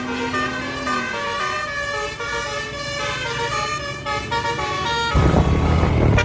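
A bus's multi-tone 'telolet' air horn playing a quick tune of short stepped notes, then a loud low rumble near the end.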